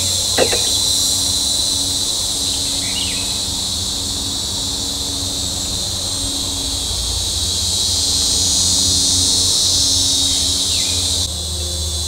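A steady, dense chorus of insects, with one sharp knock about half a second in, the kind of knocking the recorder picked up in the woods.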